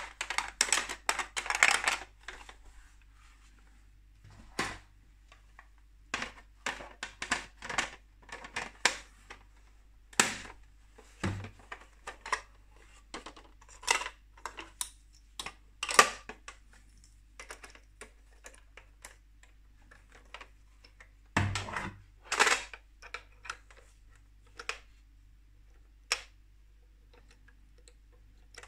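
Hard plastic parts of a Playmobil camper van clicking, tapping and rattling as the toy is handled and pieces are fitted. The clicks come in short, irregular clusters with quiet gaps between them; the busiest stretches are at the start and about two thirds of the way through.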